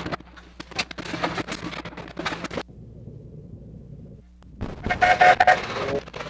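Crackling and popping from a badly deteriorated magnetic film soundtrack, then a muffled stretch. About four and a half seconds in, a steam traction engine's whistle blows for about a second and a half.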